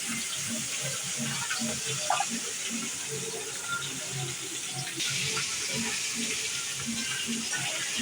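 Pieces of kalibaush, an orange-fin labeo carp, frying in hot oil: a steady sizzle with scattered crackles, getting louder about five seconds in.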